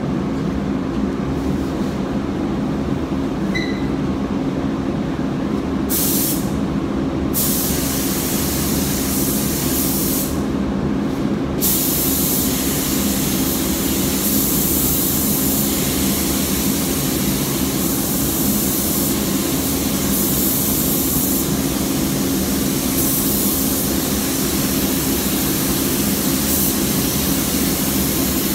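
Paint booth fans running with a steady low hum, and the hiss of a spray-gun trigger pulled as clear coat is sprayed. The hiss starts about six seconds in, stops twice briefly, then runs on without a break from about twelve seconds.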